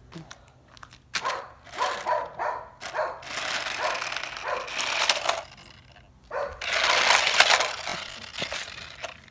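Toy RC stunt car's electric motors whirring in bursts as it drives and spins on a concrete driveway. The loudest burst comes near the end, with the car close by. Short pitched calls sound over the first few seconds.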